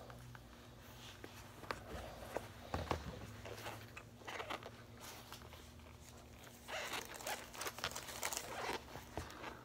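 Old suede Adidas Gazelle shoes scuffing and scraping on a tile floor as bare feet slide and dangle in them: irregular scrapes and rustles with a couple of soft knocks in the first few seconds, busiest a couple of seconds before the end.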